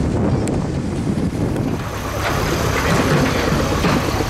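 Tractor engine running steadily, louder and closer from about halfway through.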